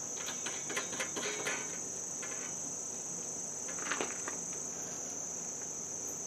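Steady, high-pitched insect chorus of crickets, with a few faint clicks in the first second and a half and a brief scrape about four seconds in.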